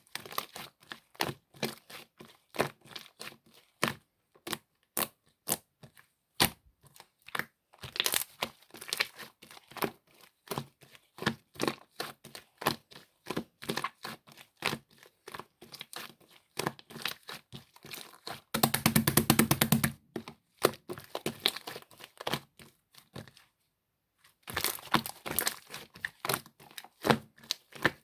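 Carbonated lemon-lime soda fizzing: a dense, irregular crackle of bubbles popping at the surface. About two-thirds of the way through there is a louder, rapid burst lasting a second or two.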